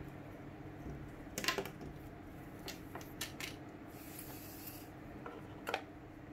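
Cardboard phone-box packaging being handled and set down on a table: a few light knocks and taps, the loudest about one and a half seconds in, and a brief rubbing slide around four seconds in.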